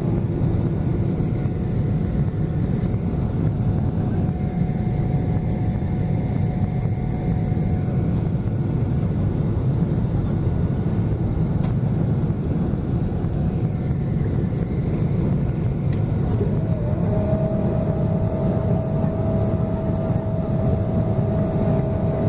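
Steady cabin noise inside a Boeing 777-200LR in its climb after takeoff: a deep rumble of its GE90 turbofan engines and rushing air, with a faint steady whine that shifts slightly lower about three-quarters of the way through.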